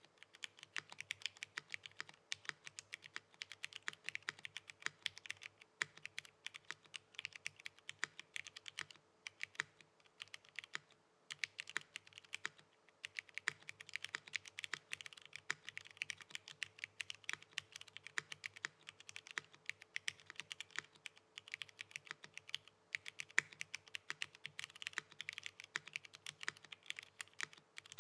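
Typing on a 7V mechanical keyboard with broken-in Cherry MX Brown HG switches on an FR4 plate under GMK Blot keycaps: a fast, steady run of keystroke clacks, broken by a few short pauses.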